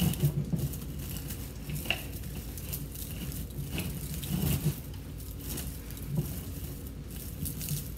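Pine greenery picks and a grapevine wreath being handled: irregular rustling and crackling, with scattered small clicks as stems are pushed in and shifted.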